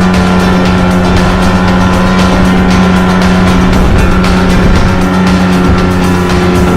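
Motorboat engine running steadily while under way, a loud constant drone with a strong low hum that does not change pitch.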